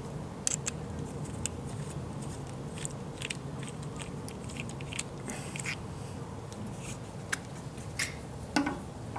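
Scattered small sharp clicks and taps of an Allen wrench and a metal bar-end slider being handled against the handlebar end, over a steady low hum.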